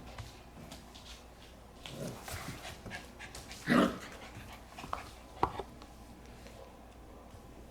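A young puppy vocalising, with one short loud cry a little under four seconds in, amid a few soft knocks and scuffles.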